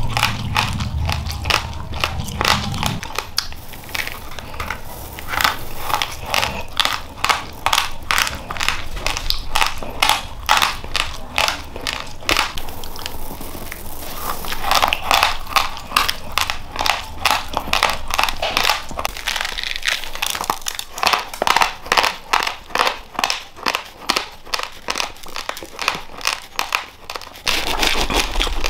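Close-up crunching of raw rice grains being chewed: a steady run of sharp crunches, about four a second, broken briefly when a fresh handful goes into the mouth. Near the end a hand rustles through loose rice in a crinkly plastic bag.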